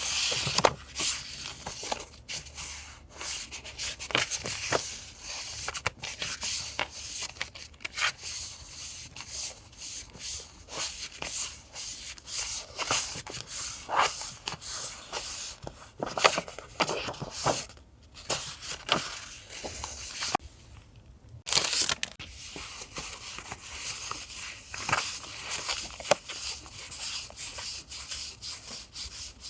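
Paper and paper packaging handled close to the microphone: continual rustling, crinkling and tearing in quick, irregular strokes, with a brief pause about two-thirds of the way through.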